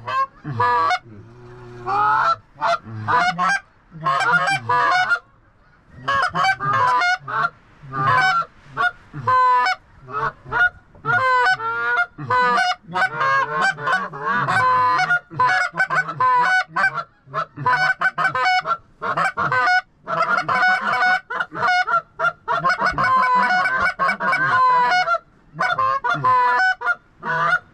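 A flock of geese honking, many calls overlapping in a dense, continuous chorus with only brief gaps; the birds are locked up and coming in to the decoys.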